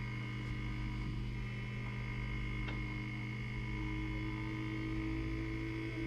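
Van de Graaff generator running: a steady electric hum with a thin, steady high tone over it. One faint click comes about halfway through.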